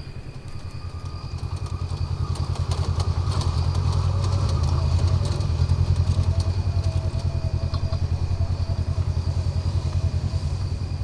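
Engine running with a fast, steady low throb and a thin high whine, growing louder over the first few seconds and then holding.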